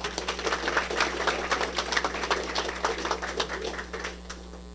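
An audience applauding with dense clapping that dies away near the end.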